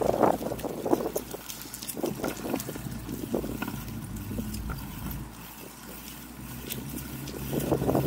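Wind buffeting the camera microphone, with a low rumble and scattered light ticks and scuffs from a small child's bicycle rolling over pavement. It dips a little quieter about five seconds in.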